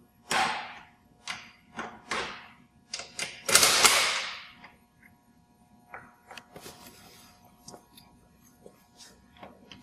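Wrench working loose the snow-deflector and scraper-tensioner bolts on a rubber track conversion unit: a run of short metallic bursts, the longest and loudest about three and a half seconds in, then fainter clicks and knocks.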